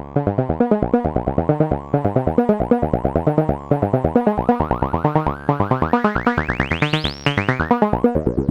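A Eurorack synthesizer sequence played through the SetonixSynth Marsupial filter: fast repeating plucked notes with rich overtones, each shaped by an envelope. Over the second half the filter sweeps upward, a resonant peak climbing bright and high, then it drops back down near the end.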